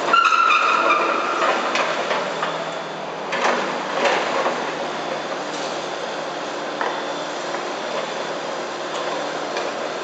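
Kubota mini excavator running as it digs a street trench, with several knocks and clanks from the bucket working dirt and broken pavement, and a brief high squeal in the first second.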